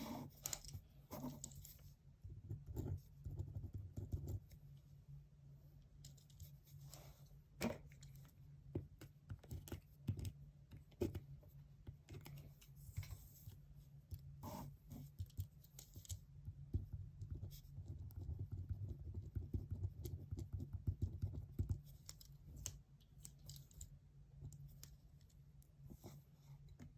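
Desk sounds of someone studying: scattered clicks, scratches and rustles of pen and paper handling, with a denser run of scratching about two-thirds of the way in, over a steady low hum.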